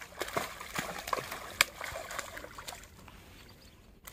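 A hooked red-bellied pacu thrashing at the water's surface, a quick run of splashes with one sharp slap about halfway through, dying away as the fish is lifted clear of the water.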